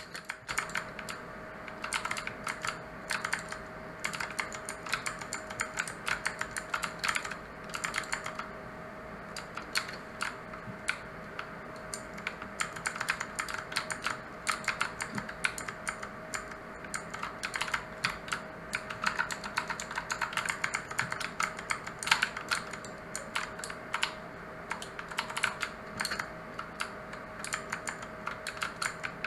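Fast, continuous typing on a mechanical keyboard with clicky blue switches: crisp key clicks in quick runs, with a couple of short pauses. A faint steady hum sits underneath.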